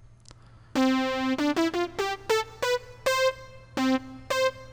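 Analog synthesizer playing a run of separate notes with no portamento, each pitch change an abrupt step rather than a glide. The notes begin about a second in, climb quickly by steps through about an octave, then drop back down an octave and leap up again near the end.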